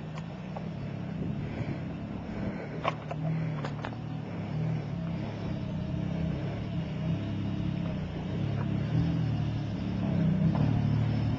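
4x4 truck's engine running at low revs as it crawls over rocks, swelling slightly near the end, with a few sharp clicks about three to four seconds in.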